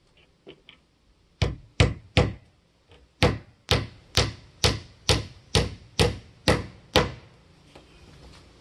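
Claw hammer driving galvanized roofing nails through 1x2 pine into a 2x4 corner block: a few light taps to start the nail, then about a dozen sharp blows, three in quick succession, a short pause, then a steady run of about two a second.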